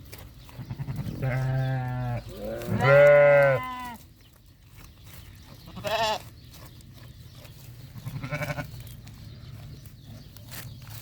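Goats and sheep bleating: two long, wavering calls one after the other in the first few seconds, the second the loudest, then two shorter bleats later on.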